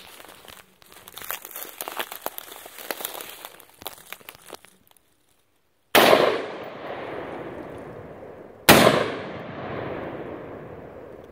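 AR-15 pistol firing two 5.56 rounds, the shots about two and a half seconds apart, each followed by a long echo that fades out. Before the shots, a few seconds of crackling and clicks.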